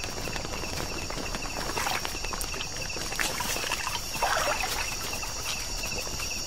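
Night rainforest ambience: insects trilling steadily, with many small ticks and two brief rustles of an animal moving over leaf litter, about two seconds in and again past four seconds.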